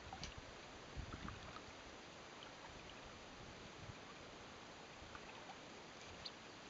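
Faint open-air ambience over shallow water: a steady low hiss with light water sounds, a few soft low thumps about a second in, and scattered tiny clicks.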